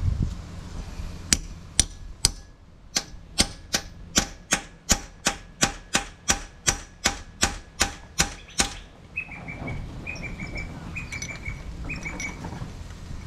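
A hammer striking a steel tool set into a snapped head bolt in the Renault F4R's cylinder head, metal on metal: three spaced blows, then a steady run of about sixteen sharp taps a little under three a second. After that come light metallic clinks near the end.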